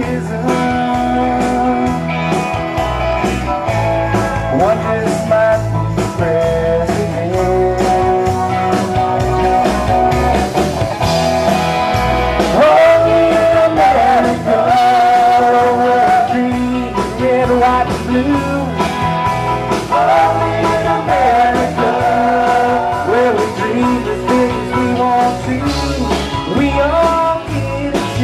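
Live band playing a loud rock-country number, with electric guitars, drums and congas under a lead melody line.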